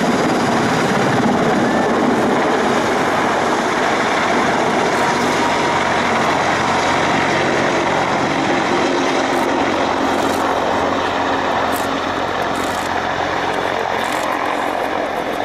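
Mil Mi-26 heavy transport helicopter running at high power, its twin turboshaft engines and eight-blade main rotor making a loud, dense, steady noise. It eases slightly over the last few seconds.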